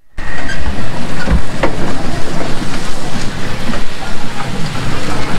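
Rattling and clatter of a battery-powered three-wheeler auto-rickshaw as it drives through muddy water on a rough, potholed lane, heard from inside the cab, with scattered knocks from the jolting body.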